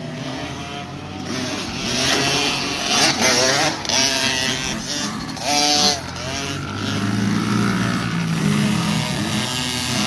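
Several small 50cc kids' dirt bikes revving hard and accelerating away from the start of a motocross race, their overlapping engine notes repeatedly climbing and dropping in pitch.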